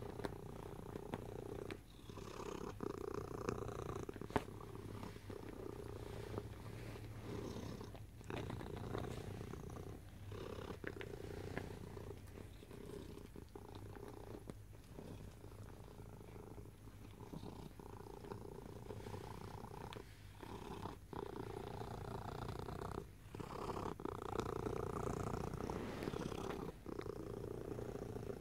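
Black domestic cat making a loud, continuous low rumble with its breathing, broken by short pauses every few seconds; the owner calls it loud snoring in its sleep.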